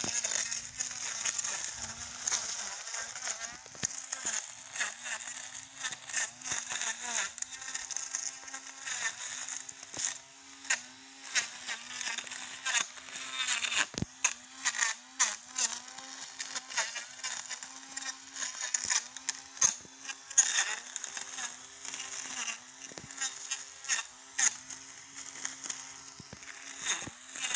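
Battery-powered brush cutter's electric motor whining steadily while cutting grass. The pitch sags briefly again and again as the head bites into the growth, with many sharp ticks of cut grass and debris.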